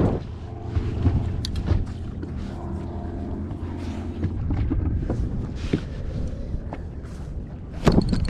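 Wind buffeting the microphone on a fishing boat, with scattered light clicks of tackle and a sharper knock near the end.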